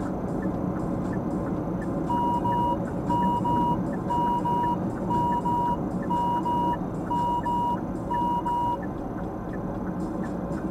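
Steady road and engine noise inside a moving car's cabin. From about two seconds in, an electronic warning beeper sounds seven double beeps, one pair a second, then stops.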